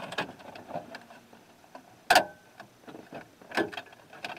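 Scattered plastic clicks and taps as an aftermarket car radio is pushed into the radio opening of a 2004 Chevy Silverado's dash. The loudest is a sharp click about two seconds in, with a smaller one about a second later.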